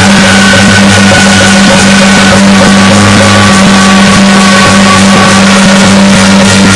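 Traditional Chinese temple ensemble music, recorded very loud and distorted, with held wind-instrument tones over a steady low hum.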